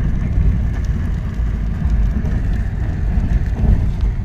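Steady low rumble of a moving passenger train, heard from inside the coach.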